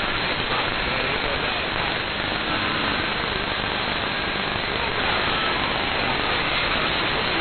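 CB radio receiver hissing with steady band static while listening for long-distance skip signals, with faint whistling tones and traces of weak voices buried in the noise.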